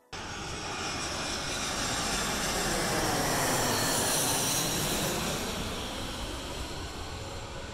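Twin-engine passenger jet passing low overhead on its landing approach with the gear down: a rushing engine roar that swells to its loudest about halfway through, then fades as the plane moves away.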